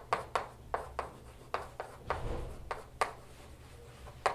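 Chalk writing on a blackboard: about a dozen sharp taps and short scratches at an irregular pace, with a longer scratch a little past the middle, as letters and symbols are written.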